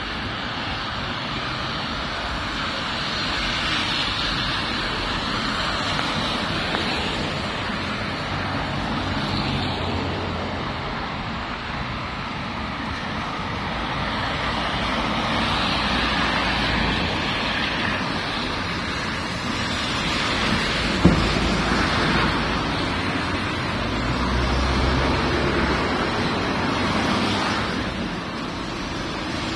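City traffic on rain-soaked roads: the hiss of tyres on wet asphalt swells and fades as cars, vans and a bus pass. A single short sharp knock comes about two-thirds of the way through.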